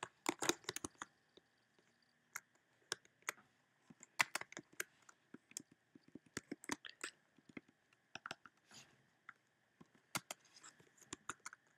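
Irregular, faint clicks of a computer mouse and keyboard, coming in scattered clusters of several at a time as text is selected, copied and pasted between applications.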